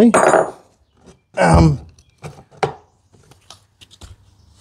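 Knocks and clunks of a Tuff Torq K46 hydrostatic transaxle's metal housing being handled and tipped on a workbench. There are a couple of heavier knocks near the start, then a scatter of short sharp taps.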